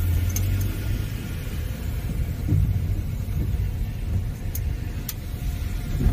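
Car rolling slowly, heard from inside the cabin as a low, uneven rumble.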